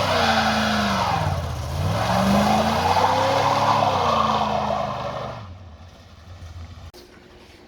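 A car engine revving, its pitch dropping and then climbing again over loud road or tyre noise, fading away about five seconds in.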